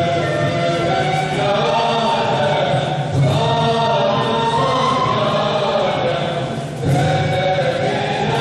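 Mevlevi ayin music for the sema: a group of voices chanting together in held, slightly wavering notes.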